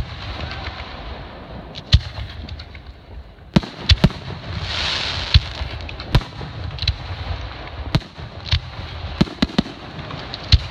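Aerial fireworks shells bursting: a dozen or so sharp booms at uneven intervals over a low rumble, with a hissing rush about four seconds in.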